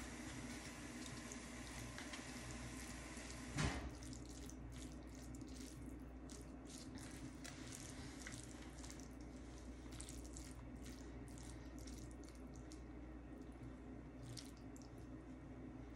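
Quiet eating sounds: a fork twirling spaghetti in a ceramic bowl, with small scattered clicks and scrapes over a steady background hiss. A single knock a little under four seconds in is the loudest sound.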